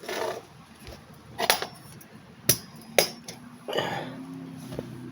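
Several sharp knocks and clicks of the portable fridge-freezer's plastic lid and housing being handled, then a faint steady low hum from about two-thirds of the way through.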